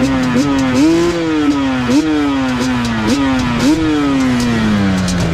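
Yamaha Banshee 350's parallel-twin two-stroke engine revving. Its pitch jumps up with several short bursts of throttle, each time falling away slowly, and winds down steadily over the last second or so.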